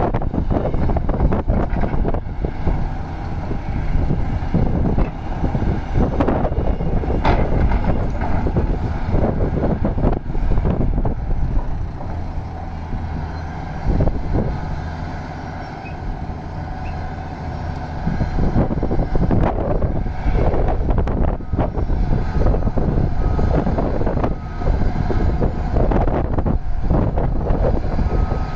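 Hitachi Zaxis 670H hydraulic excavator working: its diesel engine runs hard under hydraulic load, with clanks of the bucket and the clatter of dirt and rock dropping into a steel tipper body. The engine eases off about halfway through, then works hard again as the bucket digs.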